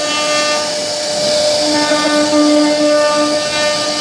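CNC router spindle running with a steady whine over the hiss of its bit cutting into a wooden door panel; a lower tone in the whine grows stronger from about a second and a half in.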